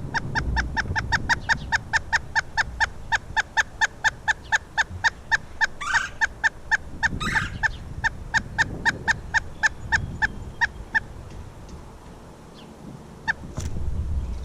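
A woodpecker calling a long series of evenly spaced notes, about four or five a second, for some eleven seconds. Two harsher calls cut in about halfway through.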